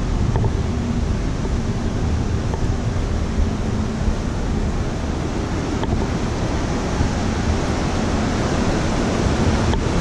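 Steady wind rushing over the microphone, mixed with the hiss of seawater churned up in a cruise ship's wake.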